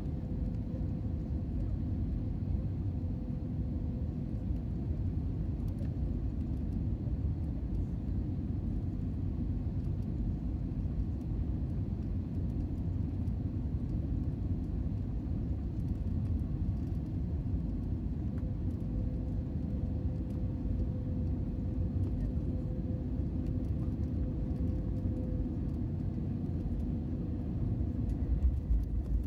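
Steady cabin rumble of an Airbus A320neo on final approach, its CFM LEAP-1A engines and the airflow over the airframe heard from a window seat over the wing, with a faint steady hum. Near the end come a few louder thumps as the wheels touch down on the runway.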